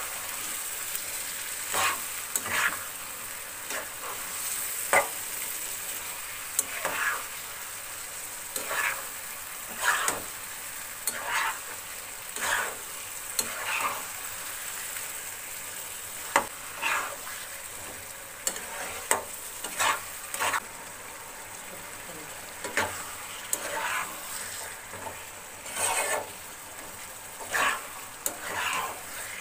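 Marinated chicken frying in a nonstick pan, sizzling steadily while a spatula stirs and scrapes through it, with a scraping stroke about every second or so.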